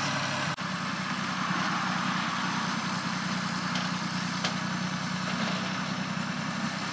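Farm tractor engine running steadily at low revs while the tractor slowly drags a small wooden shed across the grass.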